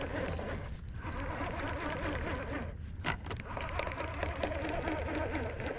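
Baitcasting fishing reel being cranked to retrieve line, a steady fast whirring, with a brief break and a click about three seconds in.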